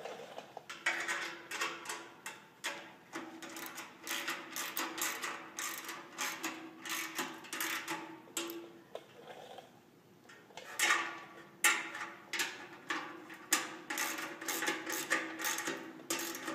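A quarter-inch bolt with a serrated flange nut being tightened onto a steel light bracket with a hand tool: runs of quick metallic clicks, with a short lull about nine to ten seconds in.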